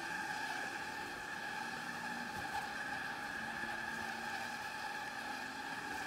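Honey bees buzzing in a steady hum around an open hive frame, with the buzz of a single bee rising and fading now and then.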